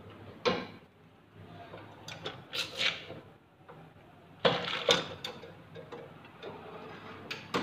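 Manual cup sealing machine being worked: sharp metal clunks and sliding clatter as the cup tray is pushed in and out and the sealing head comes down, with the two loudest knocks about four and a half seconds in. A low steady hum runs underneath.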